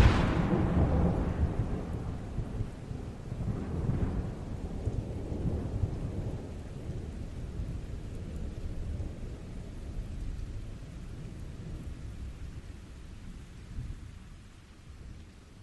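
A thunderclap: a sharp crack right at the start, then a long low rolling rumble that swells again a couple of times and slowly dies away. Rain falls steadily underneath.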